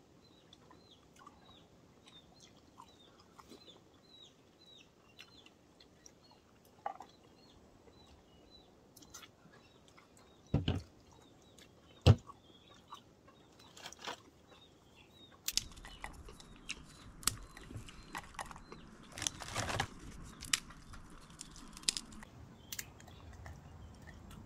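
Metal spoons clicking and scraping against fresh coconut shells as the soft flesh is scooped out and eaten. There are two sharp knocks about ten and twelve seconds in, and a rougher stretch of scraping and rustling from about halfway. A small bird chirps over and over in the background through the first half.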